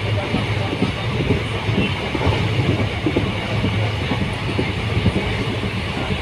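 Indian Railways passenger coach running along the track: a steady rumble of wheels on rail with many small, irregular knocks and rattles from the carriage, heard from inside at an open window.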